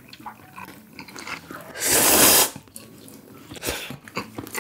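Noodles slurped into the mouth: one loud slurp lasting well under a second about two seconds in, with quieter chewing and small clicks around it.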